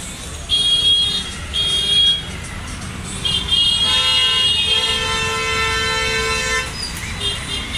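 Vehicle horns honking in street traffic: two short honks, then a long honk lasting about three seconds, joined about 4 s in by a second, lower-pitched horn, over a steady rumble of traffic.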